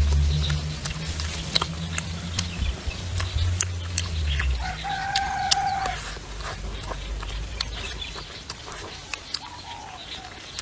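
A rooster crows once, a single held call of just over a second about halfway through. Under it, a low vehicle rumble fades away in the first few seconds, and sharp little clicks dot the background.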